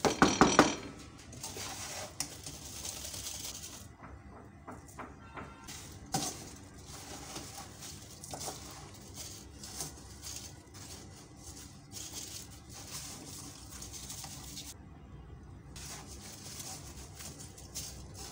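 A wooden spatula scrapes and stirs through coarse salt in a metal kadai for about a second at the start. After that, quieter scraping and rustling of salt follow as a wire skimmer scoops the salt-roasted baby potatoes out of the pan, with scattered light clicks and one sharper knock about six seconds in.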